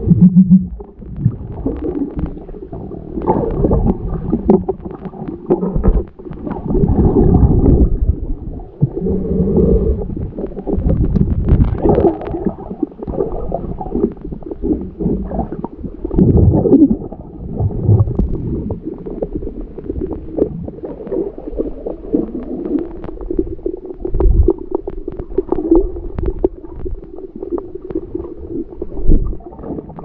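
Muffled underwater audio: irregular gurgling and low rumbling of seawater moving around the camera as it travels over the seabed, rising and falling in surges, with small clicks and knocks.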